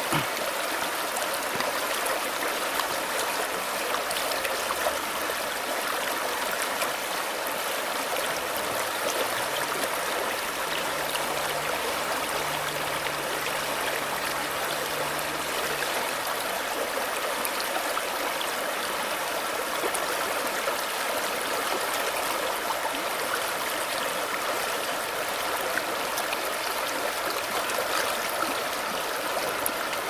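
Shallow forest stream babbling over rocks and pebbles, a steady rush of running water.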